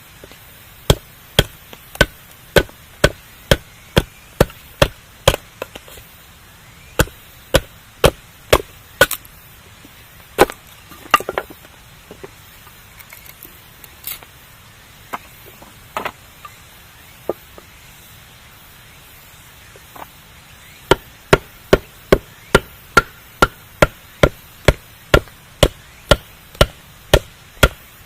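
Campfire burning, with sharp wood pops and crackles over a faint steady hiss. The pops come at a quick, even pace of about two a second, thin out to a few scattered cracks through the middle, then pick up the same pace again near the end.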